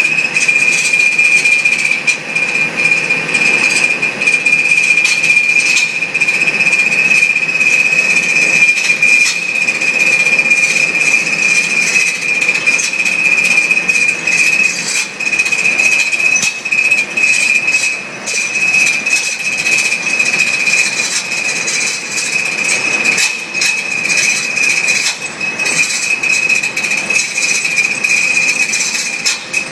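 Hair dryer running steadily: a high, even whine over the rush of air.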